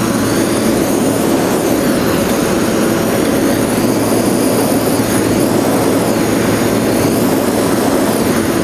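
Gas torch flame burning with a steady, loud rushing noise as thin titanium shavings are set alight.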